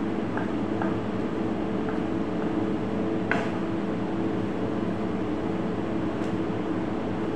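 A steady mechanical hum from kitchen machinery, with a low drone and a held tone, fills the room. Over it a kitchen knife taps faintly a few times on a plastic cutting board while slicing raw chicken breast, with one sharper click a little past three seconds in.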